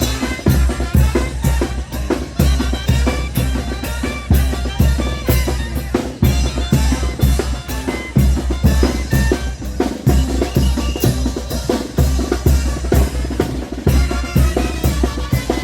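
Chinelo dance music from a brass band: bass drum and snare keep a steady, driving beat under held wind-instrument notes.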